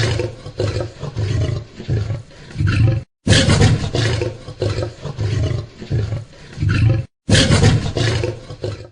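A big cat roaring in a series of deep, rhythmic grunting roars, about one every two-thirds of a second, fading toward the end of each series. The series is heard three times, each cut off abruptly by a brief silence.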